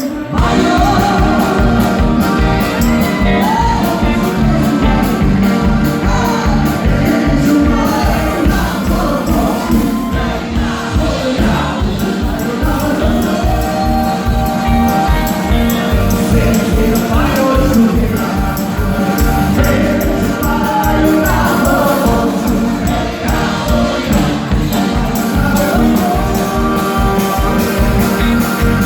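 Live music with singing: a melody line bends above held low notes, over a fast, steady beat.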